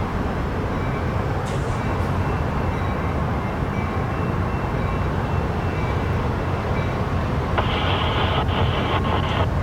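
A train running by with a steady low rumble, and a short higher hiss about three-quarters of the way through.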